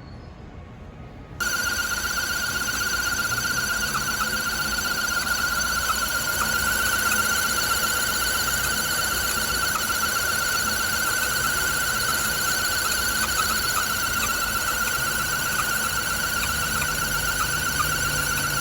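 A loud, steady high-pitched whine with a slight flutter, the abnormal noise from a Nissan Wingroad's engine bay that sounds like a UFO. It starts suddenly about a second and a half in and holds at one pitch.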